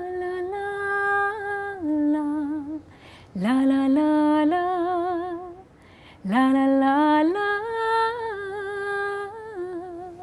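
A woman singing unaccompanied in three long phrases of held, wavering notes, with brief breaths between them. The second and third phrases each open with an upward slide.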